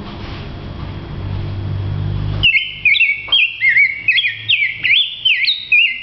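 A pet songbird singing: after a low background rumble, it breaks about two and a half seconds in into a quick run of clear whistled notes, each one slurring up or down, which continues to the end.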